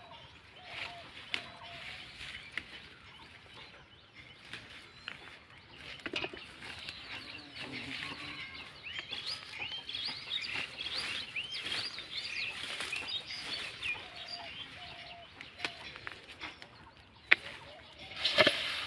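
Bean vines and leaves rustling and snapping as beans are picked by hand, with a few sharp knocks near the end. Birds are calling, with a fast run of chirps from about nine to thirteen seconds in.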